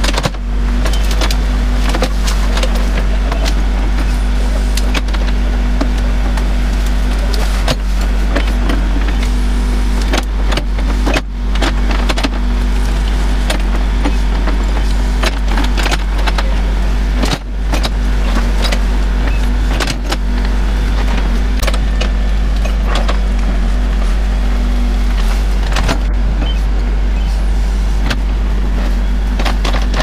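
Backhoe loader's diesel engine running steadily under load as the rear bucket digs out a tree stump, with scattered knocks and cracks of roots, branches and debris being torn and shifted.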